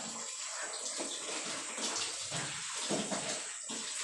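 Wet clothes being scrubbed and squeezed by hand in a plastic basin of water, with the water sloshing in irregular repeated swishes.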